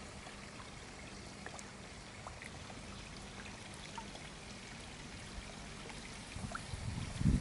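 Water trickling steadily into a garden pond, with faint scattered drips. Low rumbling thumps come in near the end.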